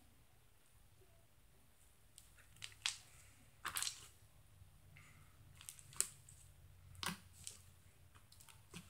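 Slime being pressed and squished by hand against a wire grid: faint scattered pops and clicks, a handful of sharper ones spaced about a second apart.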